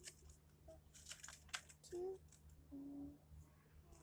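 Faint crinkles and light taps of paper being handled as a folded-paper craft is put together, clustered about a second in. Two brief low vocal sounds come near the middle.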